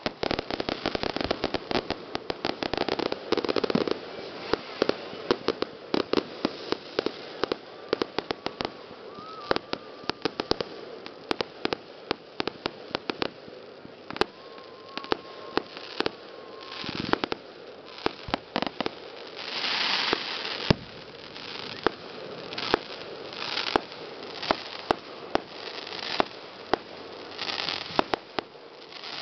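Fireworks going off: aerial shells bursting with sharp bangs and a dense run of rapid crackling through the first half. After that come scattered single bangs and several short hissing rushes.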